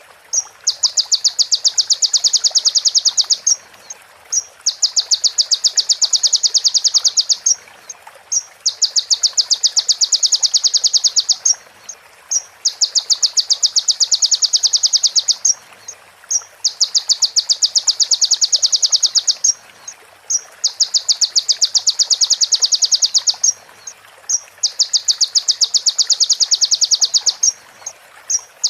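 A songbird repeating the female prinia's (prenjak betina) call: a rapid, even trill of sharp high ticking notes, about ten a second, in phrases of about three seconds. Each phrase is opened by one or two single notes, and the phrases come about every four seconds.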